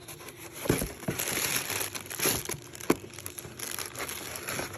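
Packaging crinkling and rustling as parts are handled and unwrapped, with a few light knocks.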